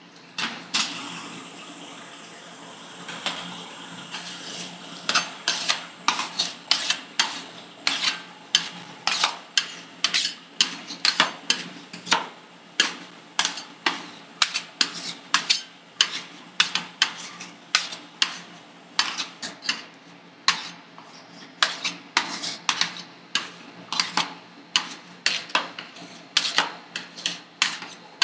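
Metal spatulas chopping and tapping on a steel ice-cream cold plate in a steady rhythm of about two sharp clacks a second, starting a few seconds in after a softer stretch of scraping and liquid sounds.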